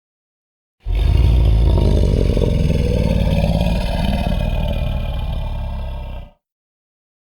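Tyrannosaurus rex roar sound effect: one long, deep, rough roar lasting about five and a half seconds, starting suddenly about a second in and dying away near the end.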